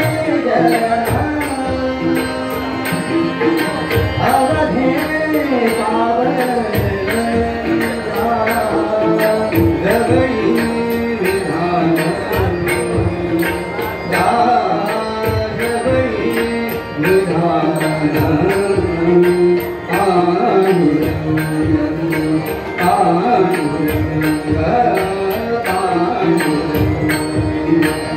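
Abhang, a Marathi devotional song: a man sings with harmonium and a steady tabla beat accompanying him.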